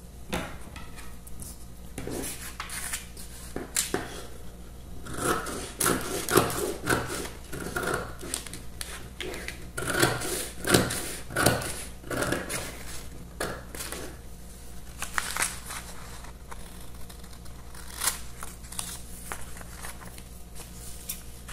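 Scissors cutting through a paper sewing pattern in a run of irregular snips, with the paper sheet rustling as it is turned and handled.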